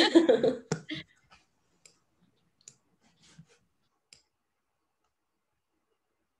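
Faint, scattered clicks from someone working a computer, about five spread over three seconds.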